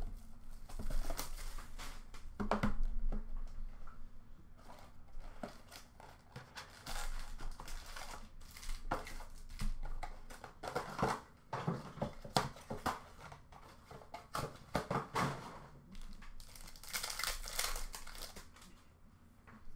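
Trading-card pack wrappers crinkling and being torn open by hand, with cards and box cardboard handled in between, in irregular bursts.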